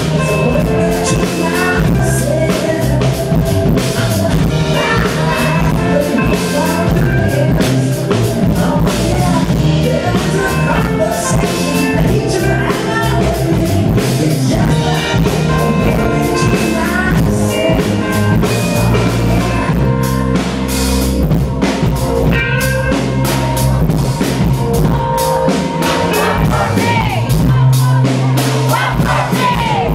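Live band music heard from the audience at a concert: a drum kit and a bass line under other instruments, with a voice singing at times.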